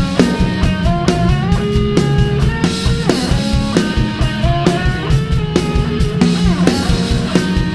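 Instrumental rock music: a steady drum-kit beat under a melodic guitar line that steps and slides between notes.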